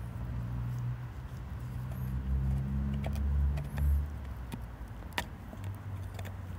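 Husky gnawing a large femur bone, with a few sharp clicks of teeth on bone. Under it a low rumble that shifts in pitch and swells between about two and four seconds in.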